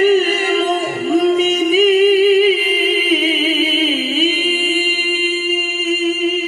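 A male qori's voice, amplified by a handheld microphone, chanting melodic Quran recitation. He holds one long ornamented note that wavers in pitch and dips briefly about four seconds in.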